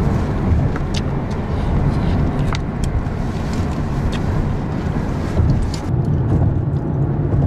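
Steady low rumble of road and engine noise inside a moving car's cabin, with a few faint sharp clicks.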